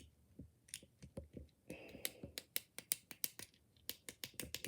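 Faint, quick, irregular clicking of a plastic fidget pad's buttons and switches being pressed and flicked, thickening into a rapid run of clicks in the second half.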